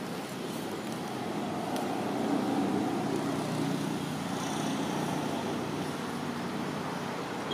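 Motor vehicle engine running, a steady engine noise that grows louder about two seconds in and then holds.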